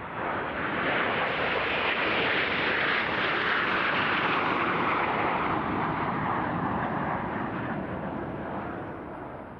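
Formation of Aermacchi MB-339 jet trainers flying past, their jet engine noise swelling over about a second, staying strong, then slowly fading away in the second half.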